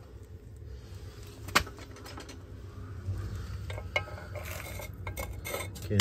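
A small hand tool scraping and poking at crusty carbon deposits in the metal burner tray of a diesel heater, with scattered clicks and clinks against the metal. One sharper click comes about a second and a half in, and the scraping grows busier near the end. The deposits are residue left by burning used oil, which clogs the burn chamber.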